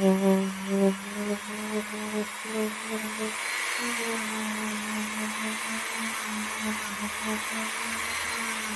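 Motorised wire brush running steadily against the steel hammer of a revolver, scrubbing off dirt buildup: a steady motor hum with a scratchy hiss of bristles on metal, its pitch stepping up slightly about four seconds in.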